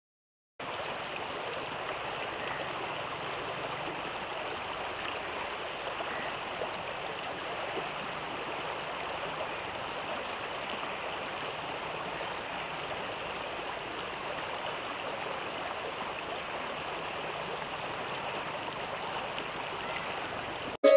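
River water flowing: a steady, even rushing that begins about half a second in, after a moment of silence.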